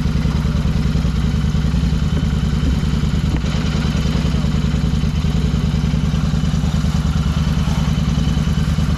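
An engine or motor running steadily, with an even, fast low pulse that does not change.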